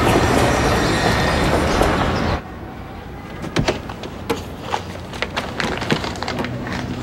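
Loud, steady rumbling noise that cuts off abruptly a little over two seconds in. It gives way to a quiet room with scattered light knocks and rustles as someone moves about by a bed.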